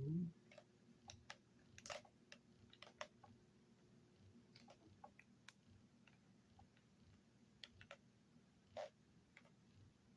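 Faint, irregular light clicks and taps of hands handling small parts of an open laptop, with slightly louder taps about two seconds in and near the end.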